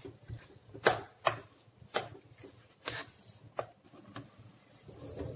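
Metal spoon stirring and mashing thick semolina halwa in a coated pan, with soft scraping and about half a dozen sharp knocks of the spoon against the pan at uneven intervals.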